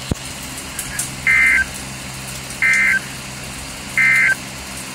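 Emergency Alert System end-of-message code: three short, identical bursts of high-pitched digital data tone, evenly spaced about 1.3 seconds apart, marking the end of the alert broadcast. A sharp click comes just at the start, and a low steady hum runs underneath.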